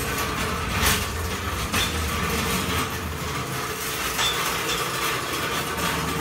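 Metal floor jack rolled across a concrete floor: a steady rattling rumble with a few sharp clinks.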